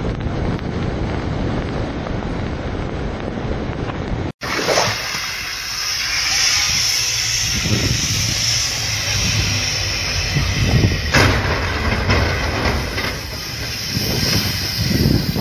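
Car driving on a snowy road, heard as a steady low rumble from inside, which cuts off about four seconds in. Then strong wind in a blizzard blowing across the microphone with a steady hiss, a low rumble and a sharp knock about halfway through.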